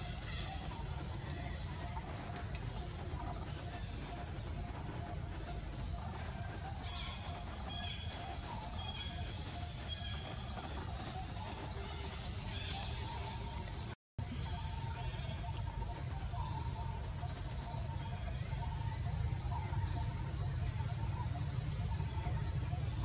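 Forest ambience of cicadas: a steady high buzz that pulses about twice a second, over a low rumble, with a few short bird calls. The sound drops out completely for a moment about fourteen seconds in.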